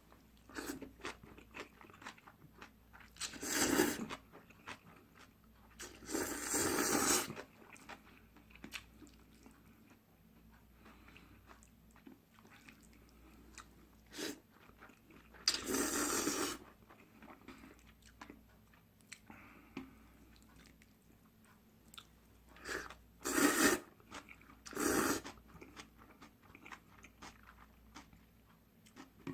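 Close-miked eating of instant buckwheat-style ramen noodles: wet chewing and small mouth clicks throughout, broken by five louder noisy bursts, each about a second long, as mouthfuls of noodles are slurped in.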